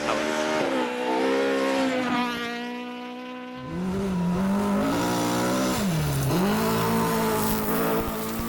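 Rally car engines at full revs on a gravel track: one engine note holds and fades over the first few seconds, then a louder one comes in suddenly, drops briefly as the driver lifts off about six seconds in, and picks up again.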